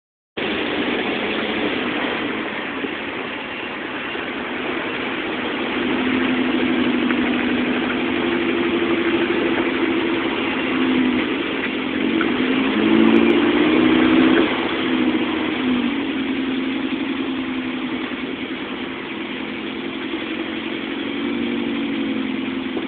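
Toyota 4x4's engine running steadily, its pitch rising and falling, loudest from about six to fifteen seconds in, over a steady hiss.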